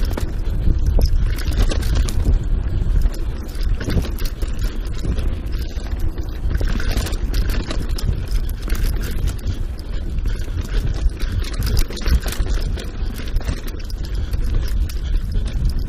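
Wind buffeting the microphone of a GoPro carried by a mountain biker riding fast down a dirt singletrack, a continuous low rumble. Under it, tyre noise on the trail and frequent short knocks and rattles as the bike goes over bumps.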